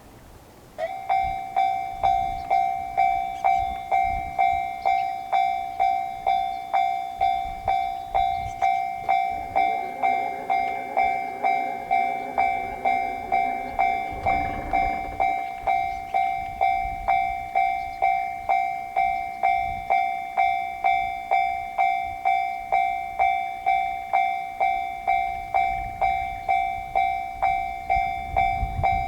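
Japanese level-crossing warning alarm (the 'kan-kan' electronic bell) switching on suddenly about a second in, then ringing in even strokes just under twice a second, the signal that a train is approaching. Partway through, a lower hum with several pitches sounds beneath it for a few seconds.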